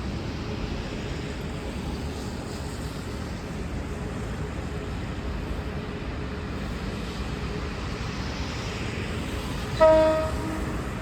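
Steady low rumble of a V/Line VLocity diesel railcar train, then near the end a single short low-note horn blast of about a second.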